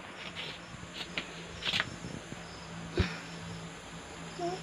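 Steady high chirring of crickets, over rustling from a newborn piglet being handled and wiped with a cloth, and a thump about three seconds in. A brief low voiced sound comes near the end.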